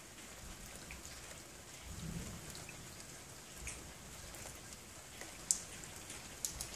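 A low rumble from the overcast sky ahead of a rain storm, swelling about two seconds in, under a steady hiss with scattered sharp ticks, the loudest one about five and a half seconds in.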